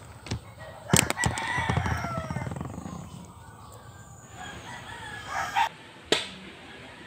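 A rooster crowing in the background: one drawn-out call that falls in pitch toward its end. A few sharp clicks come just before it, about a second in.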